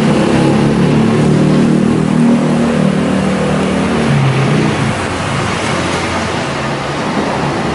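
Motor vehicle engine running steadily while under way, with road noise; its pitch drops about four seconds in.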